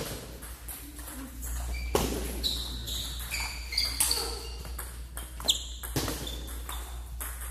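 Table tennis ball clicking off paddles and table in a rally, sharp ticks every second or so, with fainter clicks from balls at neighbouring tables. Short high squeaks, mostly in the middle.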